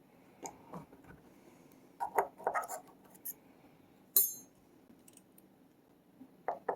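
Small metal padlock parts clicking and tapping as the shackle-retaining ball bearings are nudged into place. The taps are scattered, with a quick cluster about two seconds in and one bright ringing metal ping about four seconds in.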